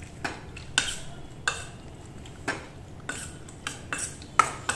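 A spoon clinking and scraping against a stainless steel bowl as raw prawns are mixed in their marinade. It is a string of short, uneven clinks, about one every half second to second.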